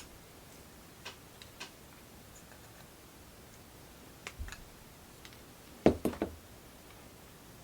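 A few small, sharp clicks and taps spaced a second or more apart, with a louder knock about six seconds in: soldering tools and small kit parts being handled and set down on a workbench.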